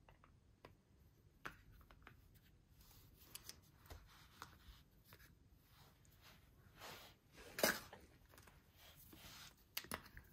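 Hollow milk-chocolate bunny being broken apart by hand and its yellow plastic toy capsule handled: scattered soft cracks, clicks and rustles, the loudest a little past halfway. Near the end a few quick clicks as the plastic capsule is pried open.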